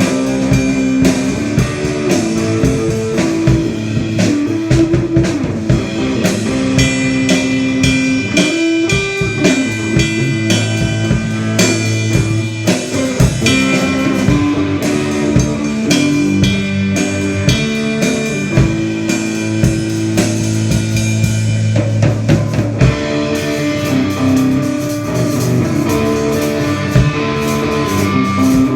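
A live band playing an instrumental rock passage: guitar, bass and drum kit, with no singing.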